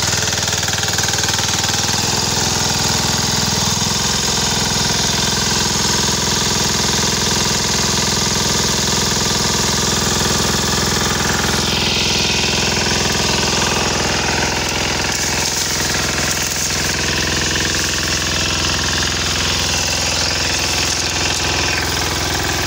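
BCS walk-behind power tiller with a Lombardini engine running steadily while its rotary tines till the soil.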